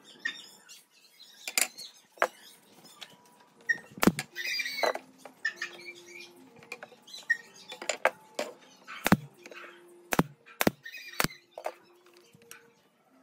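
Thin pine slats being handled and set into a wooden table frame: a series of sharp wooden knocks every second or so, with softer scraping and rustling of wood between them.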